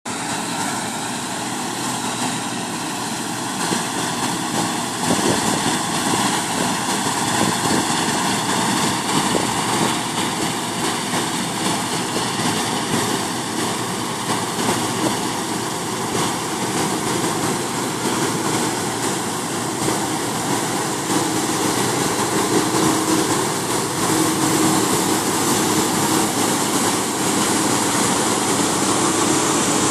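A Claas Lexion combine harvester and an International 1255 XL tractor run side by side at close range while the combine unloads grain through its auger into the trailer. Their engines and machinery make a steady, dense noise that grows louder near the end as they pass close.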